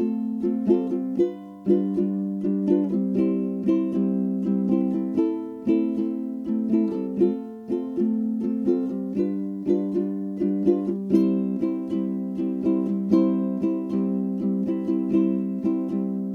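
Background music: a ukulele-like plucked string instrument strumming a light, steady rhythm.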